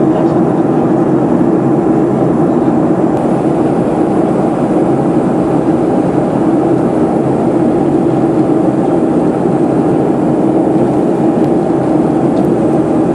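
Steady cabin noise of a Boeing 737-800 airliner in flight on its descent: the even drone of its CFM56 turbofan engines and rushing airflow, with a constant low hum.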